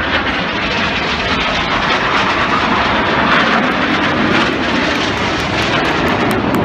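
Loud, steady jet engine noise from the Red Arrows' BAE Hawk T1 jets flying over.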